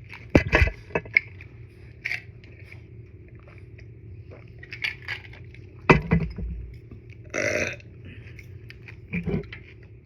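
Loud, deep burps, one about half a second in and another about six seconds in, with a smaller one near the end. Small clicks and mouth sounds from eating udon noodles fall between them.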